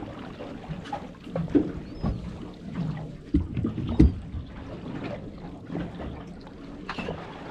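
Water slapping against the hull of a small fishing boat, with irregular knocks and thumps, the loudest about four seconds in.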